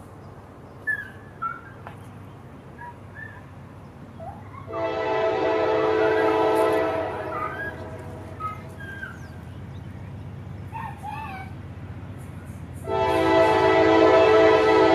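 Locomotive air horn of an approaching CSX freight train, sounded in two long blasts: one of about two seconds a little under five seconds in, and another starting near the end. Birds chirp in the gaps between the blasts.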